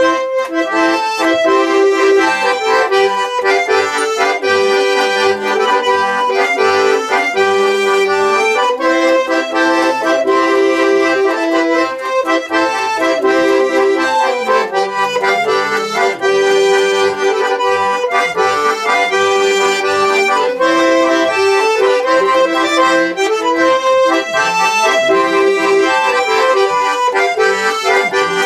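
Schwyzerörgeli (Swiss diatonic button accordion) playing a traditional Swiss folk tune, a melody over a bass-and-chord accompaniment, without a break.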